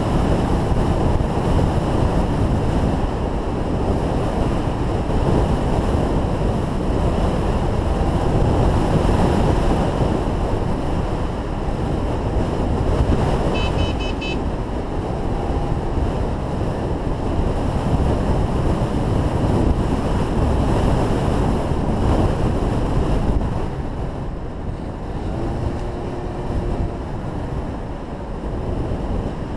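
Heavy wind rushing and buffeting over the microphone of a camera moving fast down a longboard descent, with the rumble of the wheels rolling on asphalt underneath. A brief high-pitched chirp comes about halfway through.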